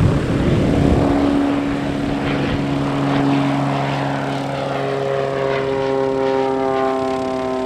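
Single-engine propeller airplane flying past low overhead and climbing away, its engine and propeller drone loudest in the first second or so, then running on steadily.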